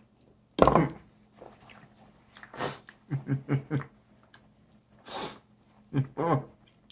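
A man's mouth and throat noises while eating. There is a loud throaty burst just under a second in, faint chewing, a few short grunt-like sounds around three seconds, and a sharp breathy blast into a paper napkin near five seconds.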